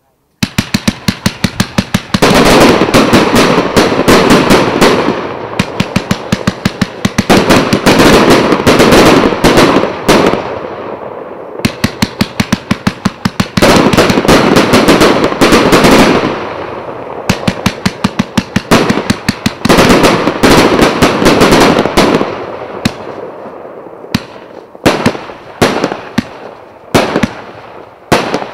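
"Premiera" 250-shot fan firework cake (1 to 1.25 inch tubes) firing: rapid strings of launch shots, each followed by a dense rush of shells bursting overhead. It comes in several surges and thins out to separate shots near the end.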